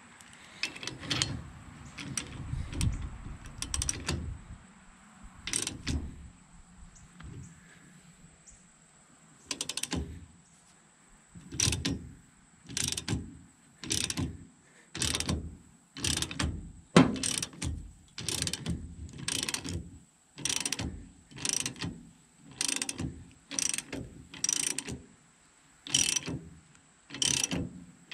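Hand ratchet worked in steady strokes, about one a second, each stroke a short run of ratchet clicks. It is turning a press screw to drive a U-joint bearing cap into a double cardan yoke. A few irregular metal knocks of parts being handled come before the strokes begin.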